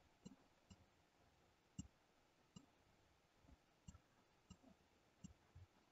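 Faint, irregular clicks of a computer mouse button over near silence, about one or two a second, as the sculpt brush is clicked and dragged.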